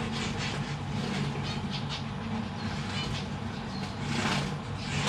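Zebra finches in a cage: one short call about three seconds in, and several brief scratchy noises, over a steady low hum.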